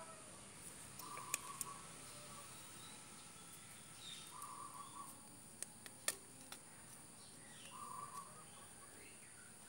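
Faint short chicken calls every few seconds over a steady high hiss, with a few sharp clicks from a plastic netting needle and ruler being handled while net mesh is tied.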